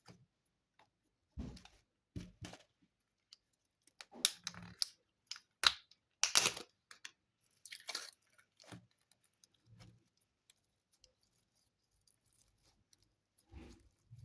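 Slime being handled by hand, giving irregular crackles and squishes, busiest in the middle and sparse near the start and end.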